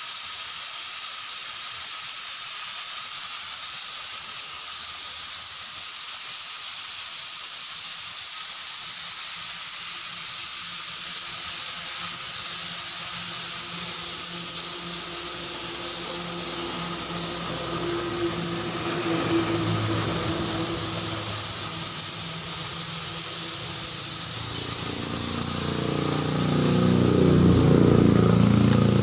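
Steady high hiss of compressed air escaping. An engine grows louder near the end.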